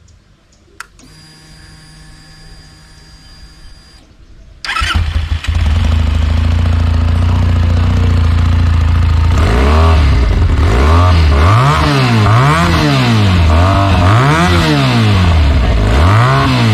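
Benelli TNT 300's 300 cc parallel-twin four-stroke engine started from cold: a click and a faint steady hum as the ignition comes on, then the engine starts suddenly about four and a half seconds in and idles. From about halfway through it is revved on the throttle several times, each rev rising and falling back to idle.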